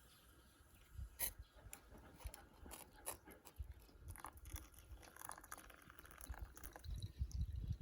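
Dry wood crackling and snapping: scattered sharp cracks, with a run of dull low thumps near the end.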